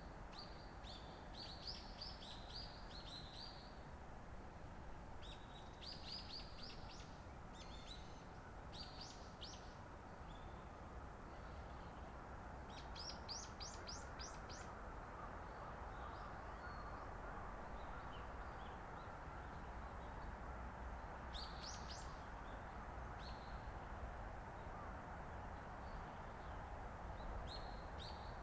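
Birds calling in short, rapid series of high chirping notes every few seconds, over a steady outdoor background hiss.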